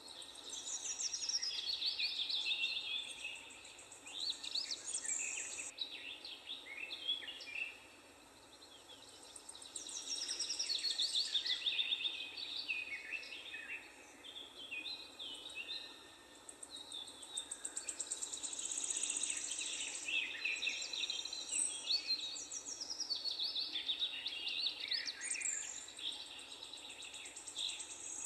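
Several songbirds singing over one another in a park, quick whistled and trilled phrases coming in waves, with short lulls about eight and fifteen seconds in.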